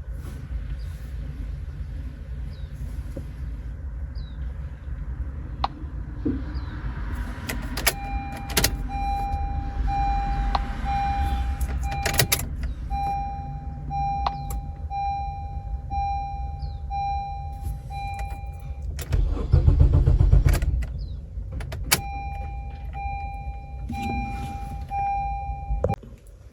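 A car's warning chime beeps in a steady pulsing pattern for about ten seconds, stops, then starts again near the end, over a steady low rumble. Several sharp clicks are heard, and there is a louder, low burst about twenty seconds in.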